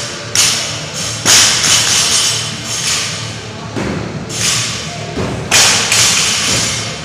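A string of about ten irregularly spaced thumps, the loudest about a second in and again past five seconds: feet landing on a wooden plyo box and the rubber gym floor during box jumps. Music plays underneath.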